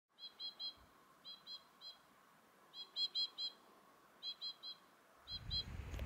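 A small bird calling in short runs of two to five quick, high chirps, a run about every second. A low rumble comes in near the end.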